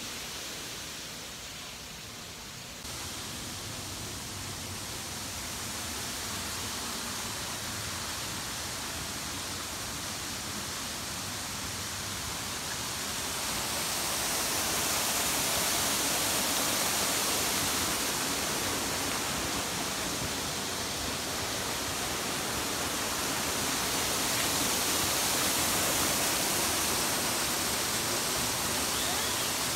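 Steady rush of falling water from a waterfall, a constant hiss that gets louder about halfway through.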